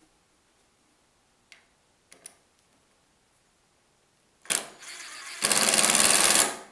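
Cordless drill boring into a wooden beam: a sharp start about four and a half seconds in, a short lighter run, then about a second of loud steady drilling that stops near the end.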